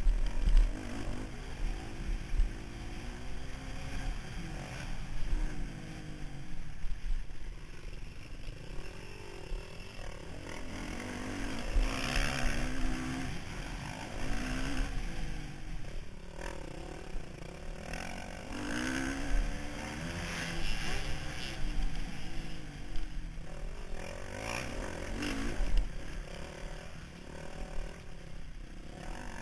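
Motocross bike engine revving hard as it is ridden over the track, its pitch rising and falling again and again as the throttle is opened and closed.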